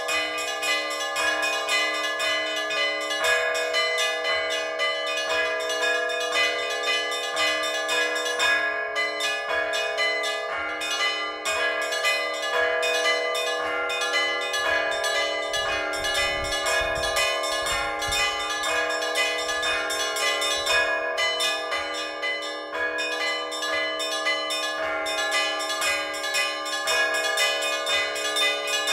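Orthodox church bells rung by hand from the bell tower: several bells of different pitches struck in a rapid, continuous peal over the steady ring of a lower bell.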